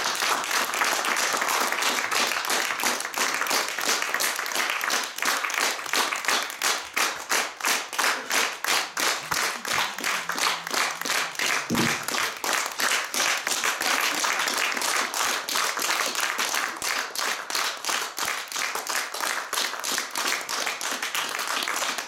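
Audience applauding in a small hall after the last song. For several seconds in the middle the clapping settles into an even, rhythmic beat.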